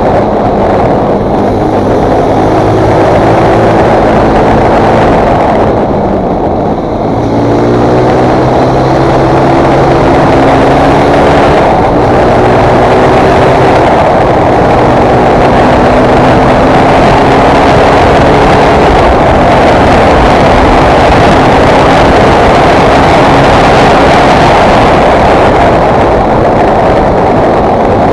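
2019 Fantic Performance 125 motard's single-cylinder four-stroke engine running under load while ridden, its pitch climbing in steps as it pulls through the gears. A short drop in level and pitch about six seconds in, as the throttle closes, before it pulls up again.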